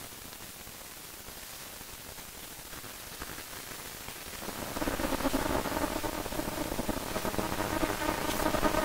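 Steady static hiss, with a droning ambient chord of held tones swelling in about halfway through and growing louder.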